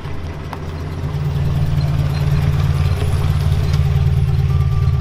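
Engine of a Toyota pickup mini truck idling with a steady low rumble, a little quieter for the first second as the truck comes to a stop.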